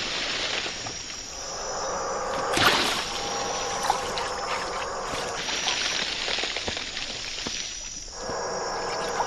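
Night jungle ambience: insects chirring over a steady hiss, with a single splash on water about two and a half seconds in.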